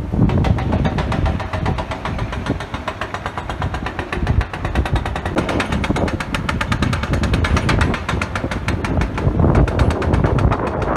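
Hydraulic breaker on a Hidromek excavator hammering into hard rock, a rapid, steady run of blows over the machine's engine.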